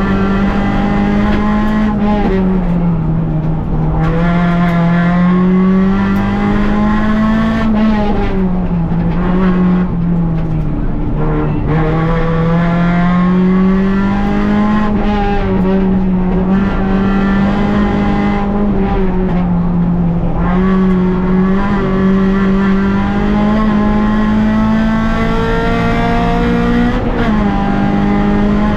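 Rally car's engine heard from inside the cockpit, driven hard on a stage. The note climbs and falls over and over, dropping suddenly at gear changes and lift-offs.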